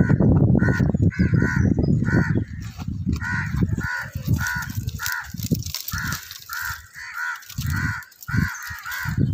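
Crows cawing in a rapid series of calls, about two a second, as they chase and harass a monkey. A loud low rumble of wind or handling on the phone's microphone covers the first couple of seconds.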